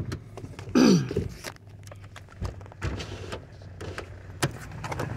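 Clicks, knocks and thumps of someone getting out of a car: the door latch and door opening, and handling noise, over a steady low hum. About a second in there is one short sound that drops in pitch.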